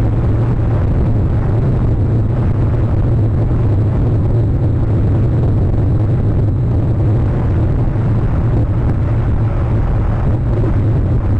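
Strong wind buffeting an outdoor camera microphone: a steady, loud low rumble.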